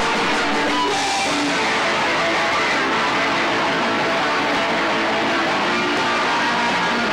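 Hardcore punk band playing, with electric guitar to the fore in a loud, dense, steady wall of sound.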